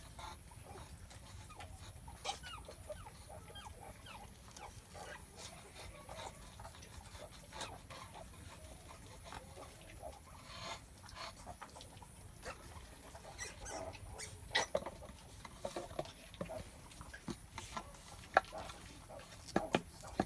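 Sow and newborn piglets making scattered short grunts and squeaks, with a few sharper, louder ones in the second half. A faint steady high whine runs underneath.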